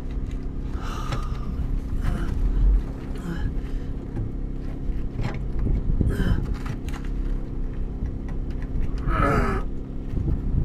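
Hand wrench work on a stuck nut: a few short metal clinks and a strained grunt about nine seconds in, over a steady low rumble and hum.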